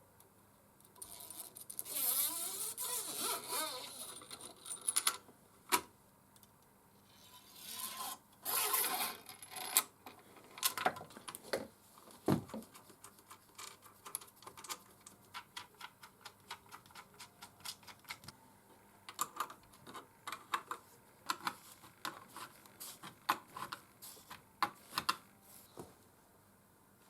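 Hands working small metal parts with tools: two spells of scraping and rubbing, then a long run of light clicks and taps.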